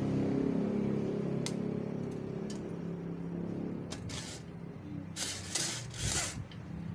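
A steady motor hum that fades away over the first few seconds, followed by a few short rustling, scraping noises.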